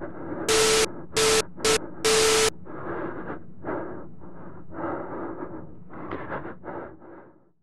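Bursts of loud electronic static with a steady hum in them, four in about two seconds, cutting on and off like a glitch effect. A run of softer, rough, irregular noises follows and fades out near the end.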